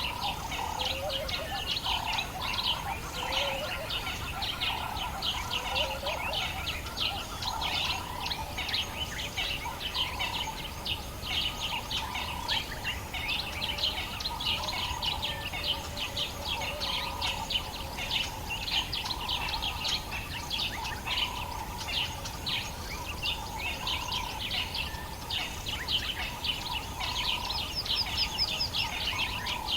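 Dawn chorus of many birds in the African bush: dense, high chirping throughout, with a lower call repeating about once a second. A steady low background noise lies underneath.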